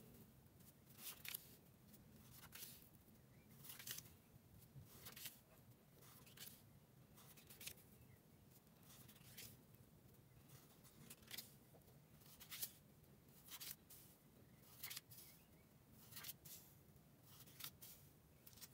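Small sheets of paper being handled and laid down one after another on a table, a short quiet rustle or tap about every second.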